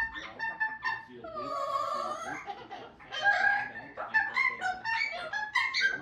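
Amazon parrots singing in an operatic style: runs of short repeated notes and a couple of longer, wavering tones that bend up and down, a parrot's imitation of opera singing.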